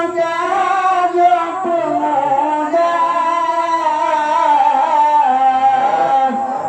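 A man singing an Acehnese qasidah into a microphone, drawing out long, ornamented lines that slide between notes, with one note held for several seconds in the middle and a new phrase starting near the end.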